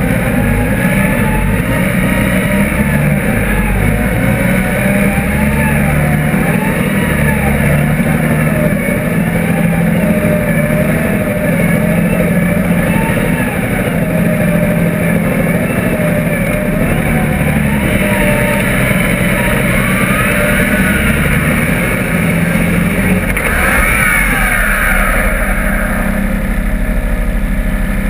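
Off-road competition buggy's engine running hard under load through mud, its pitch rising and falling as the throttle changes.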